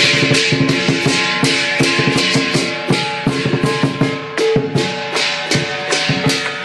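Chinese lion dance percussion played loud: a drum beating with rapid clashes of cymbals that ring on between strikes.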